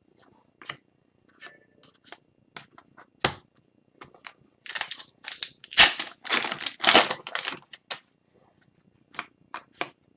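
Upper Deck hockey card pack wrapper being torn open and crinkled, a dense run of tearing and crackling from about four and a half to eight seconds in. Before it come light scattered clicks of cards being handled.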